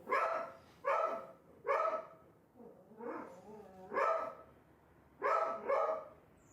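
A dog barking: about six short barks with pauses between them, and a few fainter calls in the middle.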